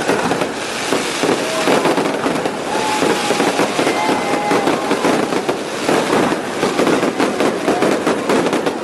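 Fireworks crackling with dense, rapid pops, packed too closely together to count.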